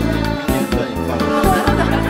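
Background music with a steady beat and a deep sustained bass line.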